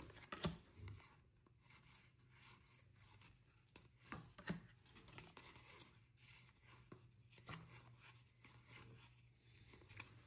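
Faint sliding and flicking of baseball trading cards being flipped through by hand, with irregular soft clicks, over a low steady room hum.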